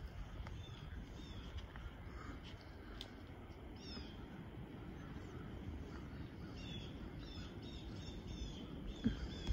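Footsteps of rubber boots through dead leaves on a woodland path, with birds giving short falling chirps in quick runs around 4 s and from about 6.5 s on. There is one thump near the end.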